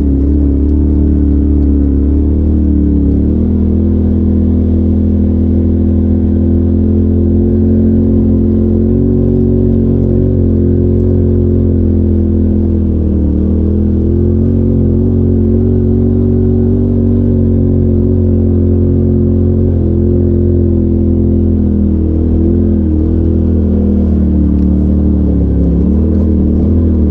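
Polaris RZR side-by-side's engine running from inside the cab as it crawls along a dirt trail at low speed, its pitch dipping and coming back up a few times as the throttle is eased off and reapplied.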